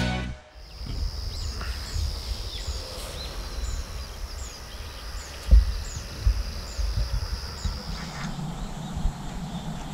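Outdoor dusk ambience: a steady high-pitched insect buzz with a short chirp repeating about once a second, over a low rumble and one thump about five and a half seconds in. The buzz stops about eight seconds in.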